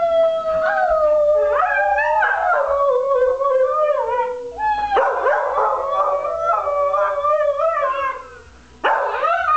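Dog howling: a long drawn-out howl that slides slowly down in pitch, then a second long howl after a brief break, dying away about a second before the end before more howling starts.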